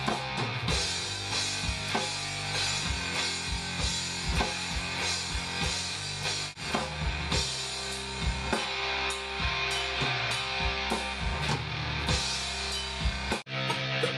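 Heavy stoner rock music: electric guitar and drum kit playing together, with two brief breaks, one about halfway through and one near the end.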